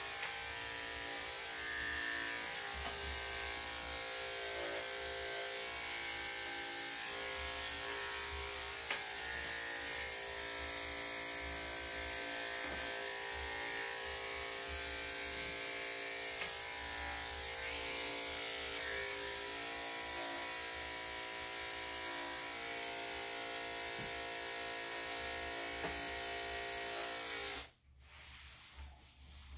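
Electric dog grooming clippers with a #7 blade running with a steady hum while shaving a dog's body coat. The hum cuts off suddenly near the end as the clippers are switched off.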